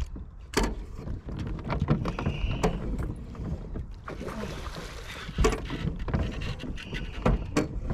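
Scattered knocks and bumps on an aluminium boat's hull and deck as an angler shifts about playing a fish on a bent rod, over a low rumble of wind on the microphone.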